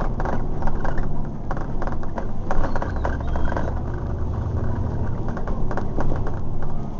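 Double-decker bus on the move, heard from inside: its diesel engine running with a low drone that swells for a couple of seconds in the middle, while panels and fittings rattle and click throughout.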